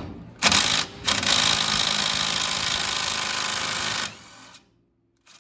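Cordless DeWalt impact driver hammering on a nut at a front drum-brake backing plate. A brief burst about half a second in is followed by about three seconds of continuous hammering that stops suddenly.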